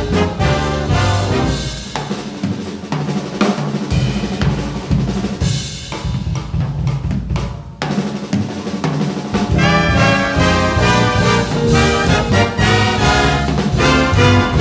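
Big band jazz: the horns drop out after about two seconds, leaving a drum kit break with snare and cymbals. The full brass and sax section comes back in about ten seconds in.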